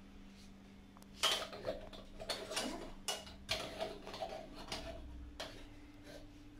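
Moka pot being screwed together: the upper chamber twisted onto the filled base, its threads giving a string of short scraping rasps from about one second in until about five and a half seconds.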